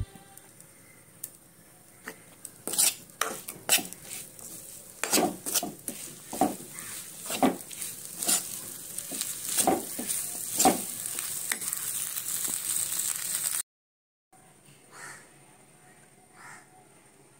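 Steel spoon scraping and stirring mashed cassava in a hot frying pan, about ten strokes, over a sizzle that grows louder. The sound cuts off suddenly about three-quarters of the way through.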